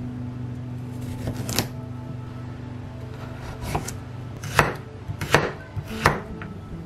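A kitchen knife chopping on a cutting board: about five separate, unevenly spaced strokes, the loudest in the second half.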